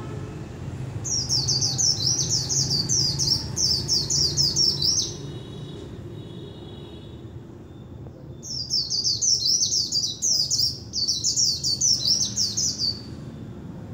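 Caged white-eye singing: two long runs of rapid, high twittering notes, each about four seconds, with a short pause between them.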